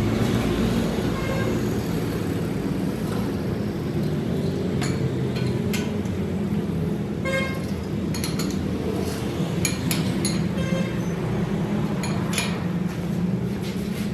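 A machine running with a steady low hum, with scattered knocks and a brief high-pitched tone about seven seconds in.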